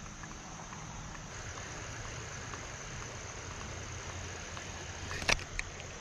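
A spinning reel, patched with a pin and braid after breaking, cranked steadily through a retrieve: a low, even whir. A sharp click comes about five seconds in, with a smaller tick just after.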